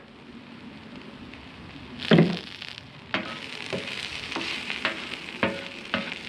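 Mushrooms, peppers and sausage sizzling on a steel flat-top griddle, with a loud knock about two seconds in. From about three seconds in the sizzle grows louder and a slotted spatula scrapes and taps against the steel about twice a second as the food is pushed around.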